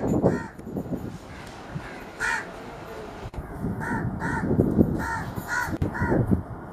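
Crows cawing repeatedly in short, harsh calls, about half a second apart from about two seconds in, over a low background rumble.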